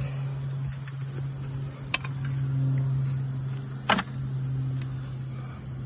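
A steady low mechanical hum, with two sharp knocks about two seconds apart, the second louder.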